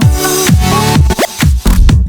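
Electronic dance music with a strong beat and repeated falling bass sweeps.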